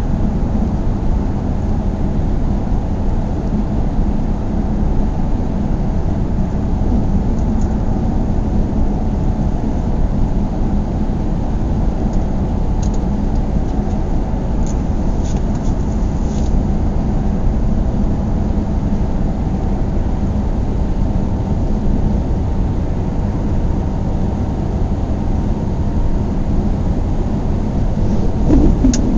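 A car driving at steady speed: an even, low rumble of engine and tyre noise on the road, with a few faint ticks about halfway through.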